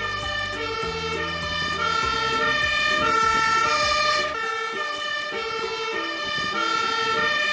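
Fire engine's two-tone siren sounding, switching back and forth between a high and a low note about every half second, with the truck's engine running underneath during the first half.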